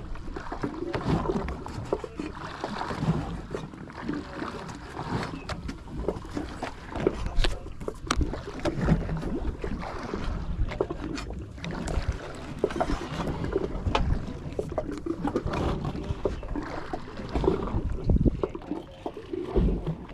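Water slapping and lapping against the hull of a small fishing boat, a fluctuating wash with scattered knocks.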